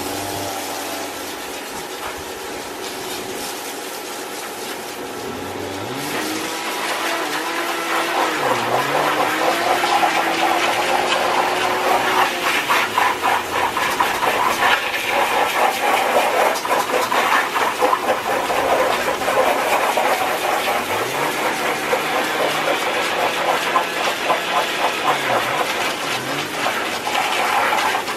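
Water spraying from a garden hose onto a metal wire dog crate and concrete, a steady hiss that grows louder and more spattering about eight seconds in. A low tone wavers up and down under the spray.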